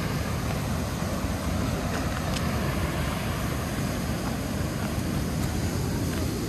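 Waterfall rushing steadily: white water pouring down rock rapids, an even roar with no let-up.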